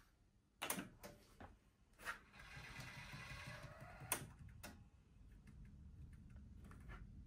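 Pioneer D-05 DAT deck's tape transport working after its buttons are pressed: a few sharp clicks, then about a second and a half of motor whirring that ends in a loud clunk, followed by a faint low hum.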